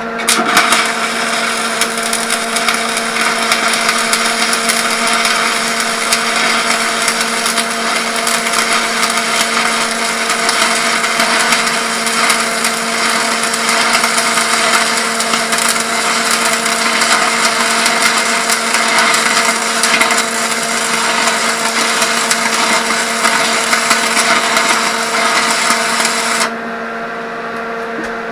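Stick (arc) welding: the arc is struck just after the start and crackles and sizzles steadily for about 26 seconds, then breaks off abruptly near the end.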